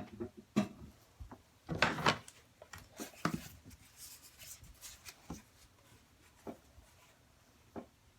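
Scattered handling noises: a few short knocks and rubs, the loudest two to three seconds in, then single faint taps.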